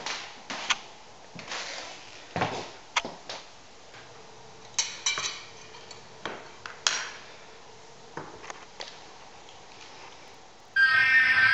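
Scattered clinks and knocks of plates, cups and cutlery in a breakfast room, a couple of them ringing briefly about five seconds in. Near the end, guitar music starts suddenly and much louder.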